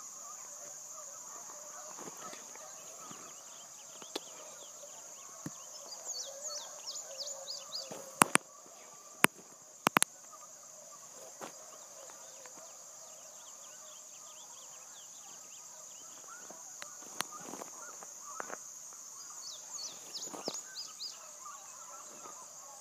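Outdoor rural ambience: insects droning steadily at a high pitch, with bird chirps coming twice. A few sharp clicks a little before the middle are the loudest sounds.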